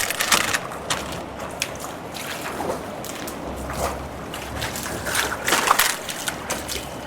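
Stream water running and trickling, with scattered irregular clicks and knocks.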